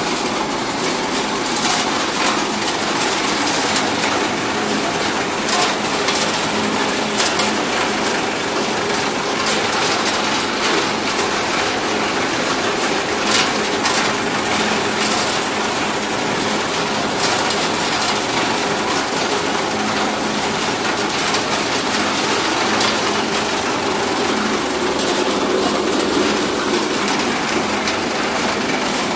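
Betel nut cutting plant running: electric motors and a belt-driven cutter make a loud, continuous machine noise, with a dense clatter of sharp clicks from the nuts being cut and shaken.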